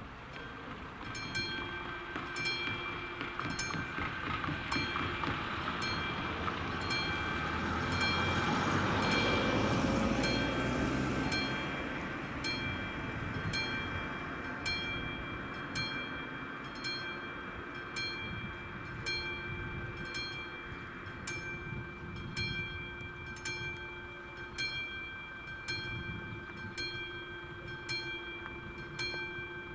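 Level-crossing warning bell of the classic electric striker type starts ringing about a second in and keeps striking at about two strokes a second as the crossing is activated. A car drives past through the middle of it, loudest around ten seconds in.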